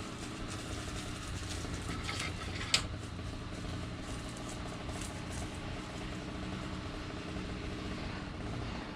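Engine idling steadily, with one sharp click just under three seconds in.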